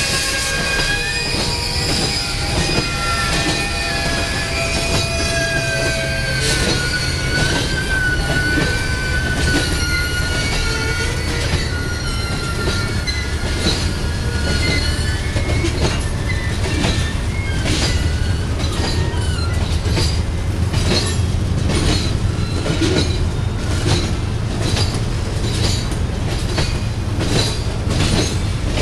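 Union Pacific gravel train's freight cars rolling past with a steady low rumble. Through the first half the wheels squeal in high, wavering tones; from about halfway on, the wheels click in a regular rhythm as the cars pass over the diamond where the line crosses the BNSF mainline.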